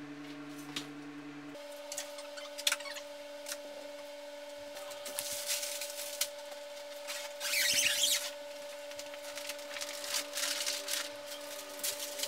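Dry sticks and leaf litter being handled and laid onto soil: scattered clicks and snaps, with a louder rustle about halfway through.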